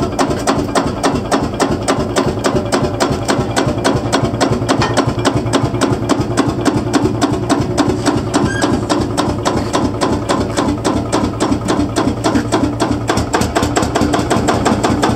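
A 1952 Field Marshall Series 3A's single-cylinder two-stroke diesel engine running with a steady, rapid, even beat.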